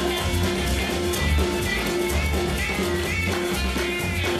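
Rock-and-roll music with guitar over a steady, pulsing bass beat.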